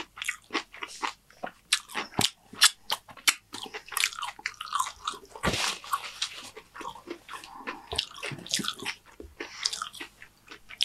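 Close-miked chewing of crunchy Doritos tortilla chips in a mouthful of nachos, with many irregular sharp crunches. A brief rustle of a paper napkin wiping the mouth comes about halfway through.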